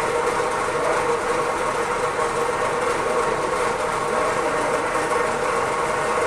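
A machine's motor running with a steady, even hum while it works at shifting a full water drum.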